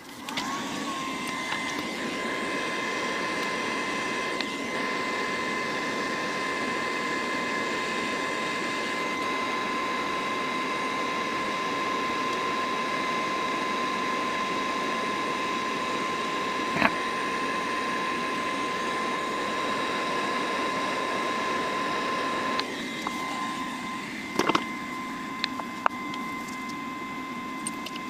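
Hot air rework station blowing a steady rush of air with a high fan whine while reflowing a replacement chip onto freshly soldered board pads. About 23 seconds in the rush of air drops away while the whine carries on, with a few light clicks near the end.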